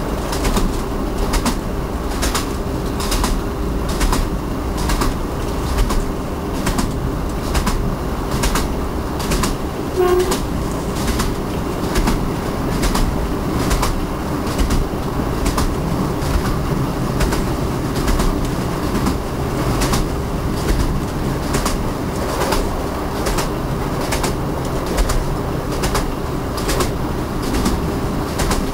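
Train wheels running over jointed rail track: a steady rumble with a regular clickety-clack as the wheels cross the rail joints.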